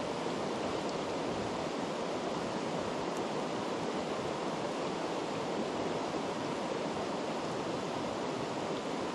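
Mountain river flowing over a stony bed: a steady, even rush of water.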